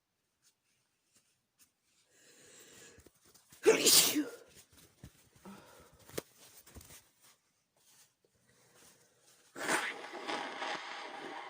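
A woman sneezes once, hard and sudden, about four seconds in, after a breathy build-up; the sneeze is brought on by chhikni snuff. Near the end comes a longer, quieter breathy sound.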